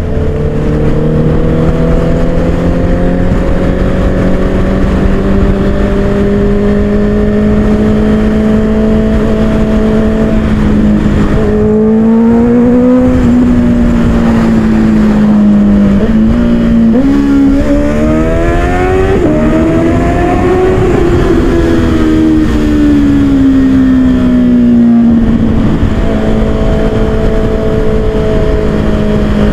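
Honda CBR sport bike's engine under way, a steady, loud note at cruising revs. Past the middle the revs climb and ease back down twice with throttle and gear changes.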